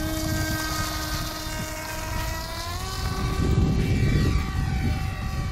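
Electric motor and propeller of a large foam RC plane (HobbyKing EPP-FPV) running with a steady whine. The whine rises in pitch a little under halfway through as the plane is throttled up for its takeoff run. Strong wind rumbles on the microphone throughout and is heaviest near the middle.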